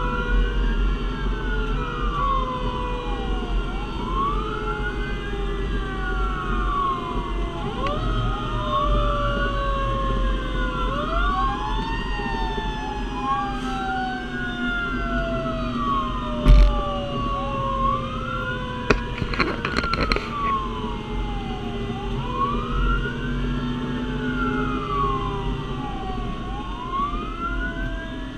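Fire engine siren on wail, rising and falling about every four seconds, with a second, lower siren tone slowly sliding down in pitch, over the truck's engine and road rumble. A single knock sounds about sixteen seconds in.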